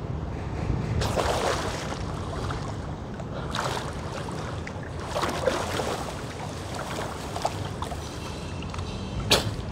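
Pool water splashing and sloshing in several bursts as a person swims and wades through it, over a steady rumble of wind on the microphone; one sharp tap near the end.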